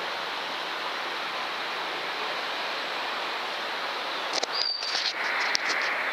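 Steady, even hiss, with a few sharp clicks and short high chirps starting about four seconds in.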